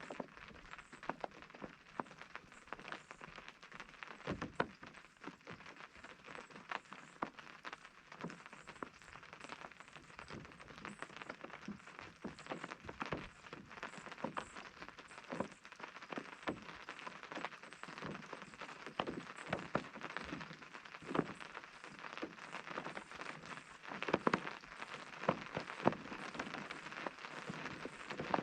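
Rain falling on a tent's fabric: a steady hiss of drops with irregular louder single-drop taps, a few sharper ones near the end.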